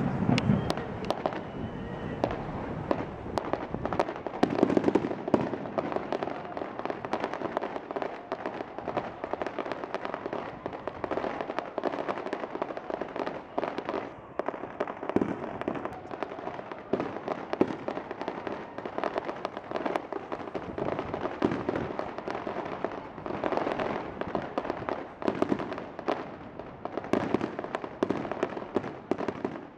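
Fireworks display: aerial shells bursting in a dense, continuous run of bangs and crackling.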